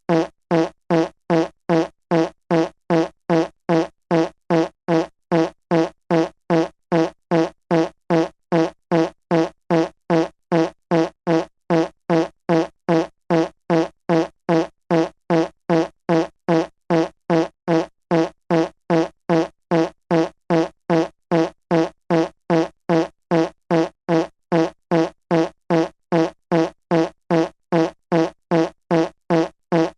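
A fart sound effect looped over and over: the same short, low-pitched fart repeats about twice a second, each one identical, at an even pace.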